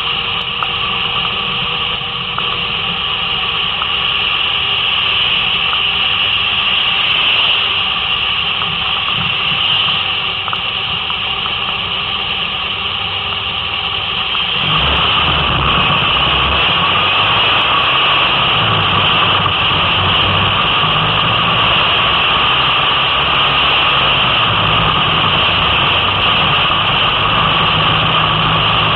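Car engine and road noise heard from inside the cabin, with a steady hiss throughout. For the first half the car stands at a red light. About halfway through the sound jumps louder and a low engine note rises and falls as the car drives off along the wet road.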